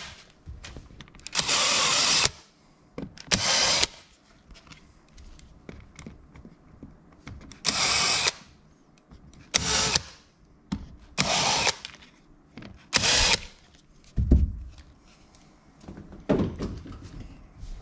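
Cordless drill with a countersink bit chamfering mounting holes in a PVC board: about six short bursts of spinning and cutting, each under a second, with pauses between them. A single low thump about 14 seconds in.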